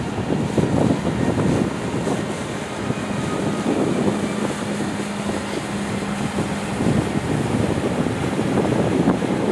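Wind buffeting the microphone over the engine rumble of a small harbour launch passing close on the river. A faint steady low tone sounds for about four seconds in the middle.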